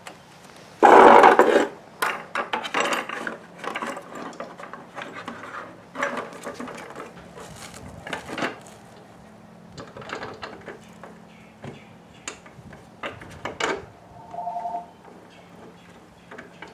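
Hands working on a power chair's battery installation: irregular clanks, clicks and scrapes of parts being moved and fitted, with a loud rasping burst about a second in.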